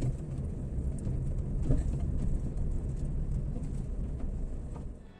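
Steady low rumble of a vehicle's engine and tyres as it drives along a paved road.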